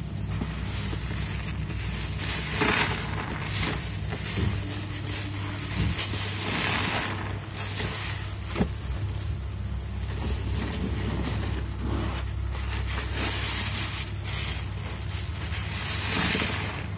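Soap-soaked foam sponges, cut from mattress foam, squeezed again and again by rubber-gloved hands in a sink full of thick suds: wet squelching and crackling foam in repeated swells, over a low steady hum.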